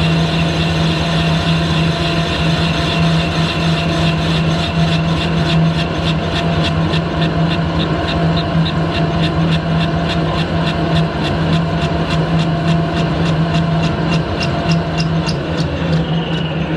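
Harrison lathe running while a carbide tool faces the edge of a cylinder-cover casting: a steady geared hum with a rapid, regular ticking, about three a second, from about five seconds in. Near the end the lathe is switched off and its whine falls as the spindle runs down.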